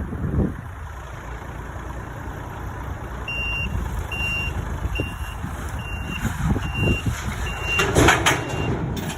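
Heavy machine's reversing alarm beeping at one steady pitch, about one beep a second, starting a few seconds in, over a low engine rumble. A louder rush of noise comes near the end.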